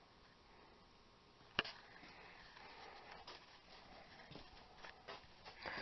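Near silence in a small room, broken by one sharp click about a second and a half in and a few faint ticks and rustles after it.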